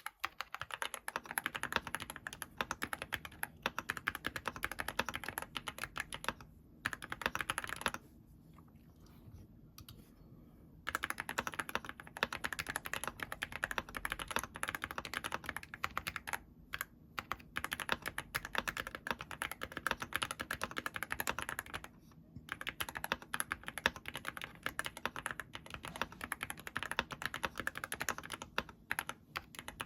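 Fast continuous typing on a Yunzii AL66 mechanical keyboard, a dense stream of key clicks that stops for about three seconds roughly a third of the way in, then resumes with brief breaks.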